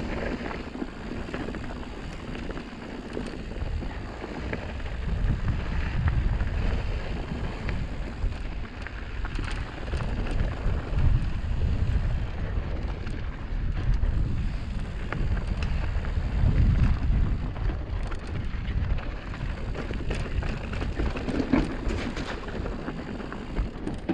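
Wind buffeting the microphone of a mountain biker's camera on a fast downhill, a low rumble that swells and fades in gusts. Under it run the crunch of mountain bike tyres on loose, dusty, rocky dirt and scattered clicks and rattles from the bike over rocks.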